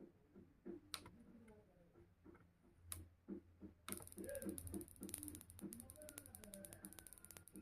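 Faint mechanical clicking with a low hum. About four seconds in, a high hiss joins and the clicking turns into a fast, dense ticking.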